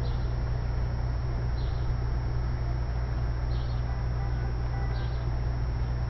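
Steady low rumble of outdoor background noise, with faint short high-pitched bird chirps about every second and a half.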